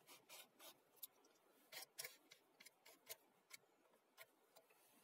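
Faint, irregular clicks and light scrapes of a short wooden board being handled and pressed into place against a wooden post, the sharpest pair about two seconds in.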